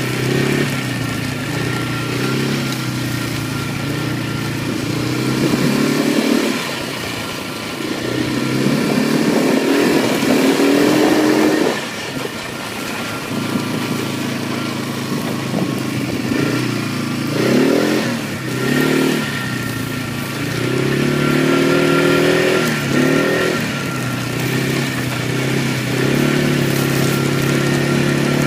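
Four-wheeler (ATV) engine running under load as it is driven across a field, its pitch rising and falling several times as the throttle is opened and eased off.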